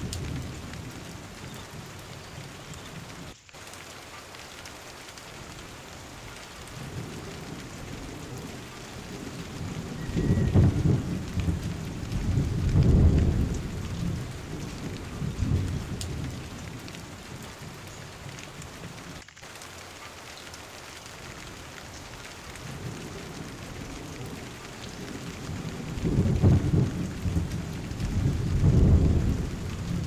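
Steady rain falling on leaves and undergrowth. Deep low rumbles swell up twice, about ten seconds in and again near the end, and are louder than the rain.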